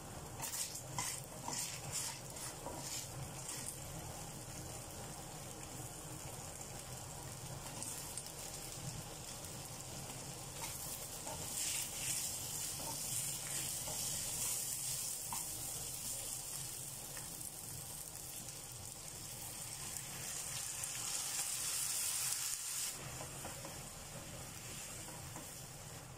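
Garlic, shallots, potato and carrot chunks frying and sizzling in a pan, stirred and scraped with a wooden spatula. A run of sharp clicks comes in the first few seconds. The sizzling swells louder about halfway through and again toward the end, then drops away.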